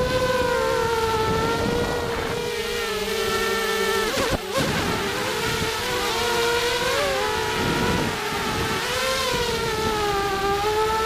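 ZMR250 FPV quadcopter's four 2300 kV brushless motors and propellers whining as heard from the onboard camera, the pitch rising and falling with throttle, over a low wind rumble. About four seconds in the whine briefly dips and drops away.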